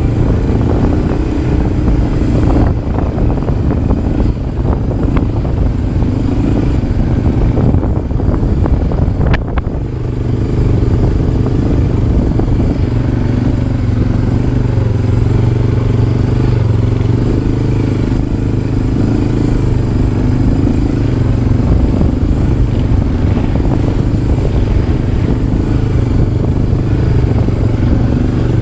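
ATV (quad) engine running under way on a trail ride, heard from on board. It eases off briefly about ten seconds in, then holds a steady pitch.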